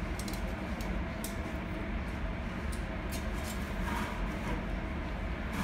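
A few light metallic clicks and knocks of a stainless-steel tray and utensil being handled on a steel counter, over a steady low background hum.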